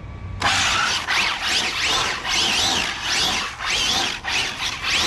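Arrma Felony brushless RC car pulsing its throttle: a high whine that rises and falls in quick repeated bursts, about three every two seconds, over the rush of its tyres spinning and squealing on the asphalt.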